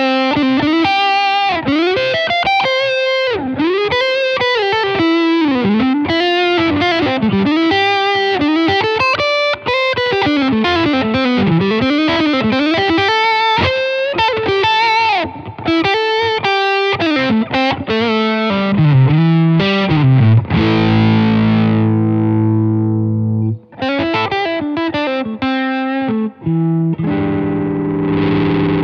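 Fender Mahogany Blacktop Stratocaster HHH on its middle humbucker, played through a J-Rockett Hot Rod Monkey overdrive: fast single-note lead lines with string bends and vibrato. About two-thirds of the way through, a chord is left to ring for a few seconds, then come a few more runs and a final held chord that stops abruptly.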